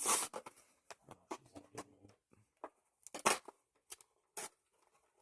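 Plastic packaging being pried and torn open: irregular crackles and snaps, loudest at the start and again about three seconds in.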